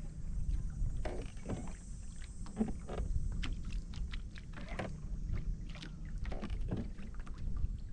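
Small waves lapping and slapping irregularly against the hull of a fishing boat, over a low wind rumble on the microphone.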